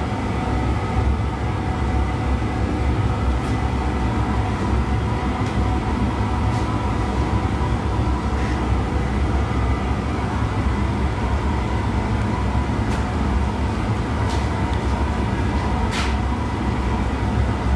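Steady roar of a glassworks furnace and its burner blower running, with a deep rumble and a faint hum. A few faint ticks come through it now and then.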